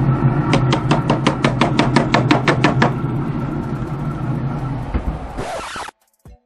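Metal tongs clicking and scraping in a foil pan of vegetables, about nine quick clicks a second for some two seconds, over a steady low mechanical hum. The sound cuts off abruptly near the end, with a single drum beat just after.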